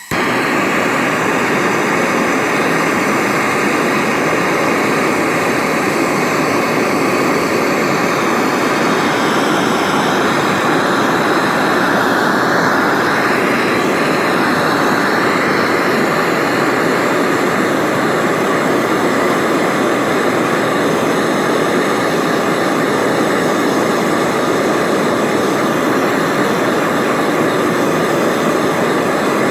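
Blowtorch flame burning steadily at full blast, a loud even rushing noise that comes on abruptly and holds unchanged, heating a joint to melt a silver-solder pellet under flux.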